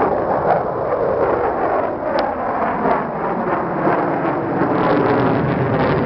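Engine noise from a formation of four aircraft flying overhead: a loud, steady roar whose pitch slowly falls over the first few seconds as the planes pass.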